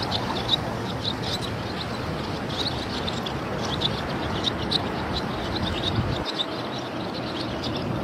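Flock of long-tailed ducks calling on the sea: many short, high notes repeated irregularly over a steady rush of wind and water.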